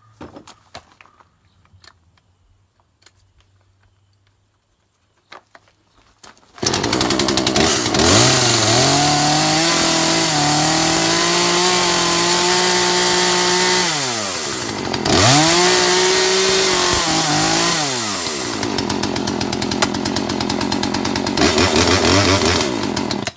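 Poulan Wood Shark two-stroke chainsaw starting after a few seconds of handling clicks. It is revved up high, eased back, revved again, then settles to a fast, pulsing idle before it is switched off at the end: the saw starts and runs.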